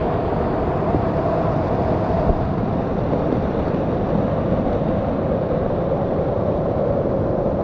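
Waterfall water pouring down close by: a loud, steady rush of falling water.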